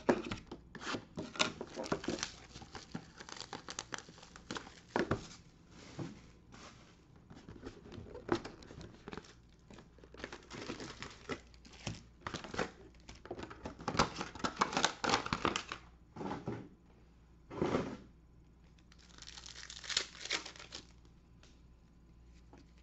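Trading card packs being torn open by hand: wrappers tearing and crinkling in irregular crackles, with clicks and rustles of the cardboard box and cards being handled.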